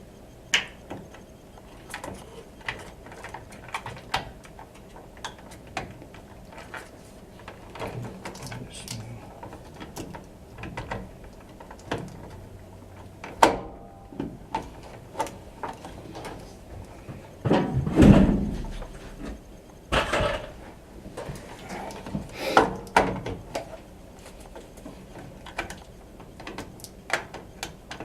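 Handling noise: irregular clicks, taps and knocks of parts being worked on by hand. There is a sharp knock about 13 seconds in and a heavier thump about 18 seconds in.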